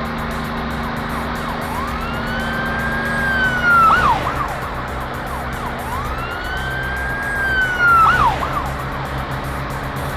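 A cartoon siren-like wail sounds twice, about four seconds apart, over steady background music. Each wail rises, holds high, then drops with a quick wobble at the end.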